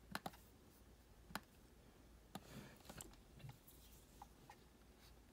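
Near silence with a few faint, sharp computer mouse clicks: two close together at the start, then single clicks spaced through the rest.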